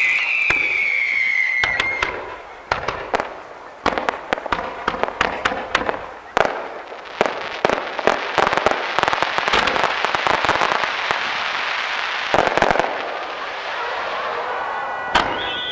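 Fireworks going off. A falling whistle fades out about two seconds in, then comes a string of sharp bangs and pops that builds into dense crackling in the middle. Near the end, another falling whistle starts.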